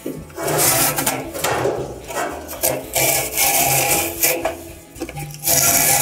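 Worn felt rear drum seal being torn by hand off the rim of a Kenmore dryer drum, where it is glued on, in several long tearing pulls of about a second each. The seal is worn all the way around, the kind of wear that causes a dryer to squeak and grind.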